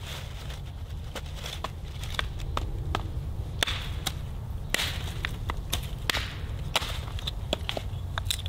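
Hatchet splitting kindling on a wooden stump: a run of sharp, uneven cracks and taps as the blade strikes and splits thin sticks.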